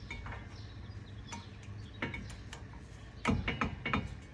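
Light metallic clicks and clinks of steel brake pad hardware clips being handled and pressed into the caliper bracket, with a quick cluster of taps near the end.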